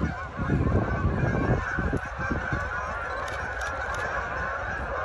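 A large flock of Canada geese honking all together as it takes flight: a dense, steady din of overlapping calls. A low rumble sits under it for about the first second and a half.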